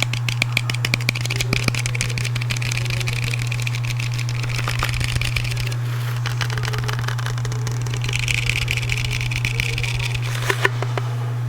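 Rapid light tapping on a handheld object in quick runs, through the first half and again near the end, with one sharper click near the end, over a steady low background hum.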